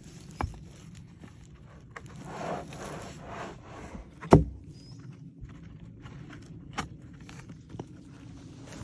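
An axe striking a log while stripping its bark: a few scattered knocks, with one much harder strike a little past four seconds in, and scraping and rustling between them.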